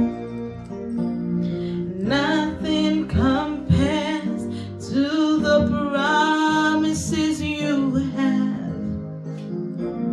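Worship music: a singing voice over guitar and keyboard accompaniment.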